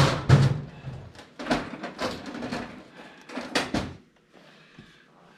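A series of clanks, knocks and scrapes from tools and parts being handled, stopping about four seconds in.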